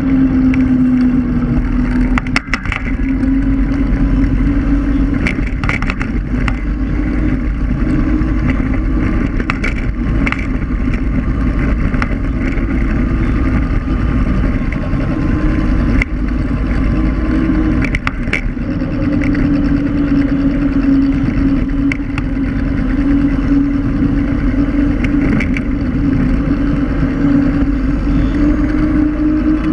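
Electric scooter riding on asphalt: a steady motor whine that drifts slightly up and down in pitch with speed, over a dense tyre rumble, with scattered sharp knocks from the ride.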